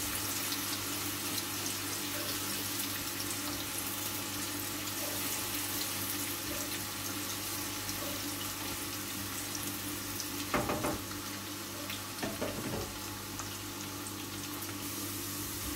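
Sliced onions frying in hot oil in a non-stick kadai, a steady sizzle while they are stirred, with two short knocks about two-thirds of the way through.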